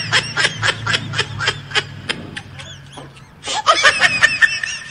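Someone giggling in a quick, high-pitched run that pauses about halfway through and starts again near the end.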